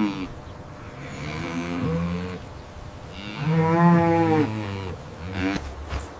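Cattle mooing several times, with the longest and loudest call about halfway through.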